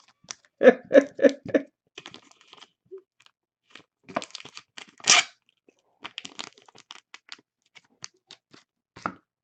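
Crinkling and tearing of packaging and cards being handled, with scattered short clicks and taps and a louder crunching scrape about five seconds in.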